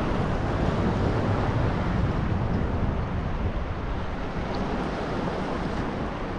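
Steady wind rushing over the microphone together with small sea waves lapping.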